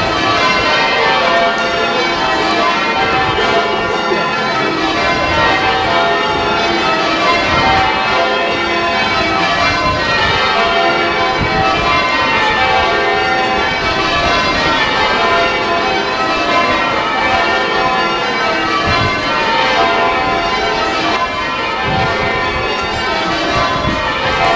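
Ring of church bells at York Oratory rung full-circle in change ringing. The bells strike continuously one after another in repeating descending rows, their tones overlapping.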